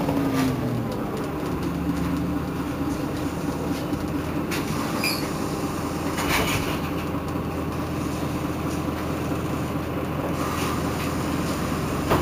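Irisbus Citelis city bus running: its engine note falls over the first second, then holds a steady drone. A few brief clicks and a short high chirp come about five seconds in.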